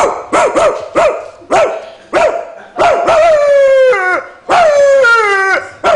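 A person imitating a bulldog's bark: about six short, quick barks, then two long drawn-out calls that fall in pitch.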